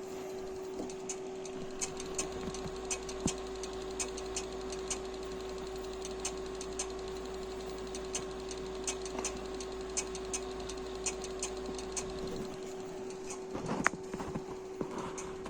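Desktop PC hard disk clicking irregularly as it runs, over a steady hum. The technician takes the clicking for a sign that the disk could be failing or that the power supply could be at fault. A brief louder clatter comes near the end.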